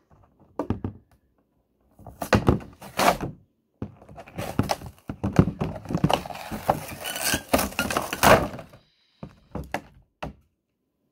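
A cardboard toy box being handled and pulled open: irregular knocks, scrapes and crinkling of the packaging, with a dense stretch of crackling through the middle.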